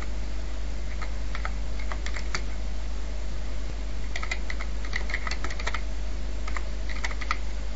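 Computer keyboard being typed on, keystrokes clicking in three short runs with pauses between, over a steady low hum and hiss from the recording.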